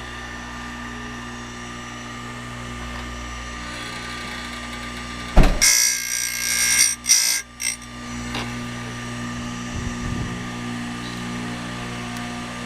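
Electric Stihl chain grinder's motor running with a steady hum. About five seconds in, the grinding wheel bites into a saw-chain cutter in a few loud, hissing bursts over about two seconds, then the motor runs on steadily.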